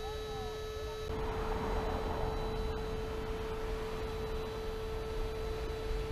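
Electric air pump inflating an inflatable boat, running with a steady whine over a rush of air that gets louder about a second in.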